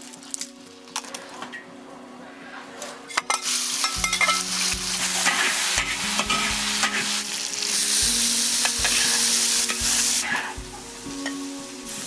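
Stir-fry sizzling in a large wok as a metal ladle stirs and scrapes it. It starts with a few light clicks, the sizzle breaks out about three seconds in, and it is loudest a little before the end before easing off.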